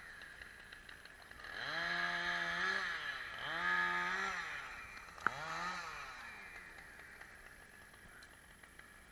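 An engine revving up, holding and dropping back three times in a row, each rev lasting about a second, with a sharp click just before the third.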